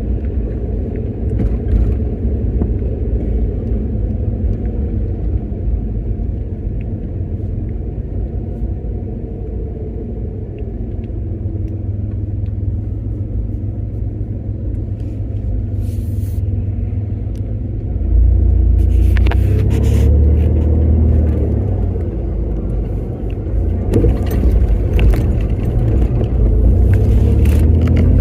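A motor vehicle driving on the road: a steady low engine and road rumble whose engine tones drift up and down in pitch. It grows louder about two-thirds of the way through.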